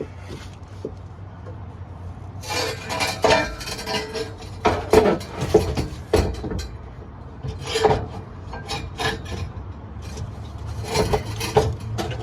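Irregular metal clinking and scraping, as tools and exhaust parts are handled during a header install, with a low steady hum underneath.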